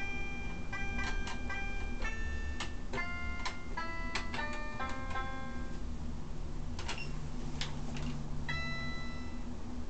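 Electronic cat-shaped toy piano playing short, plinky notes as a toddler presses its keys at random, several notes a second at first and fewer after about six seconds.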